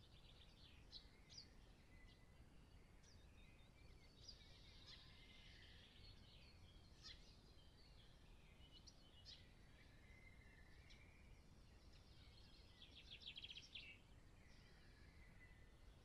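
Faint songbirds singing and chirping, with short notes scattered throughout and a rapid trill near the end, over a low steady background rumble.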